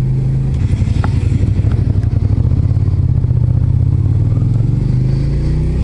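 Suzuki Gladius 400's V-twin engine running while the motorcycle is ridden at low speed. About half a second in, its steady note breaks into an uneven, choppy beat. It then smooths out again, and the note rises slightly near the end as the bike speeds up.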